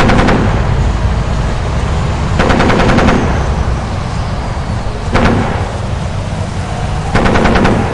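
Battle sound effect: short bursts of machine-gun fire, four bursts spaced a couple of seconds apart, over a steady low battlefield rumble.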